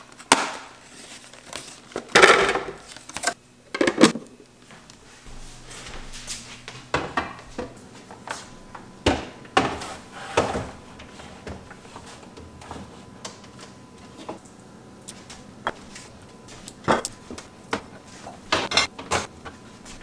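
Plastic bins and food containers being handled and set down on glass refrigerator shelves: irregular knocks and clatter, with a few louder bumps.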